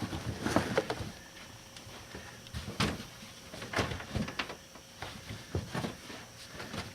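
Molded car carpet with foam backing being shoved and worked into place on a car's floor: irregular rustling, scuffing and soft knocks, some eight or nine in a few clusters.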